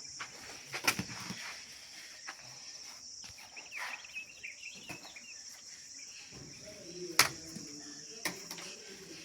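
Steady high-pitched insect-like buzzing, with a few sharp knocks: the loudest about seven seconds in, another about a second in, and some brief chirps around four seconds.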